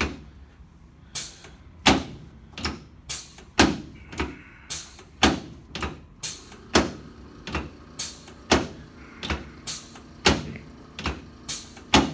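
A handheld spring-loaded chiropractic adjusting instrument firing again and again, about two dozen sharp clicks at uneven intervals of roughly half a second to a second.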